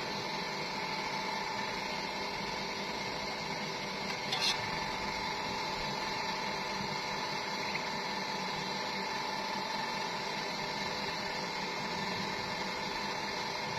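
Welding arc sizzling and crackling steadily, with a brief louder crackle about four seconds in.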